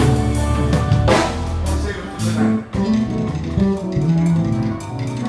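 Jazz-fusion band playing live: electric bass line and guitar over drums, with cymbal crashes about a second in and again past two seconds.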